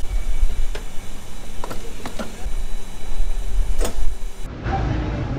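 Refuelling at a gas-station pump: a low, uneven rumble with four sharp clicks spread over the first four seconds. About four and a half seconds in it cuts to a steadier, quieter store hum.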